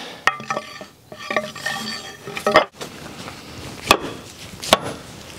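Steel mattock head clinking and ringing as it is fitted onto a wooden handle, then two sharp knocks less than a second apart as the head is seated on the handle.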